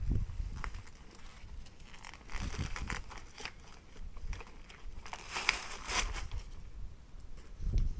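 A thick paper book being torn apart by hand, its pages crackling and ripping in two bouts of effort.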